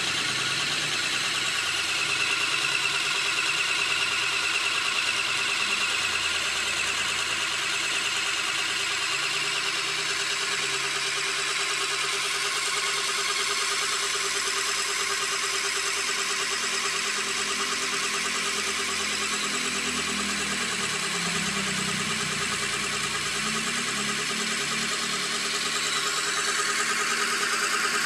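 Homemade scroll saw running steadily: a small DC motor, fed from a 5 V USB power bank, whirring as it drives a reduction gearbox and crank that work the blade arm.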